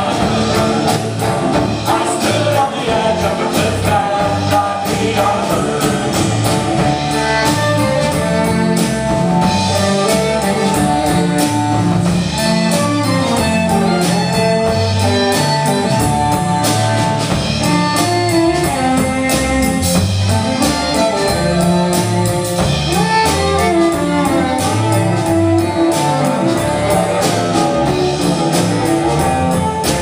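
Live rock band music: drum kit, electric guitar and bowed strings (cello and violin) playing with a steady beat, with singing.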